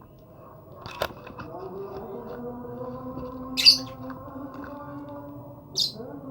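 Pet lovebird giving two short, shrill squawks, about two seconds apart, the first the louder, after a sharp click about a second in.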